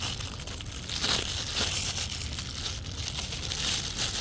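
Plastic packaging crinkling and rustling in irregular crackles as a replacement paper air filter for a lawn mower is handled, over a steady low rumble.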